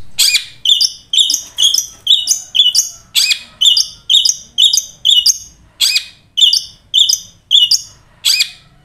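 Long-tailed shrike calling a rapid, steady series of short, harsh, high notes, about two a second, with a louder upward-swooping note every few calls.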